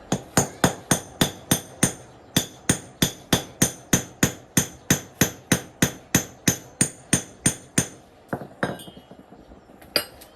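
Hammer striking metal in a steady run of ringing blows, about three a second, with a short break near two seconds in; the run stops near the end, followed by a few scattered strikes.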